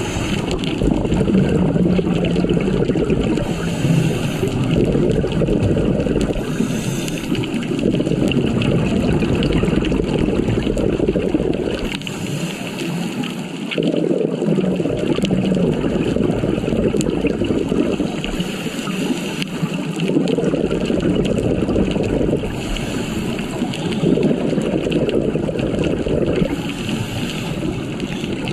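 Scuba breathing heard underwater through the regulator: a hiss of air on each inhale, then a long rush of bubbling as the exhaled air escapes. The cycle repeats every few seconds.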